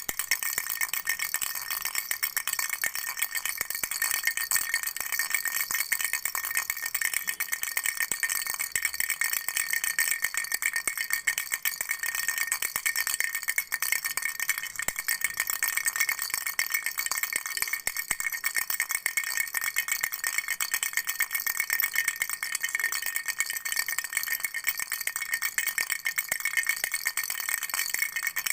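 Flower-shaped baby rattle shaken continuously, a fast, dense, unbroken rattling with a steady bright ringing underneath.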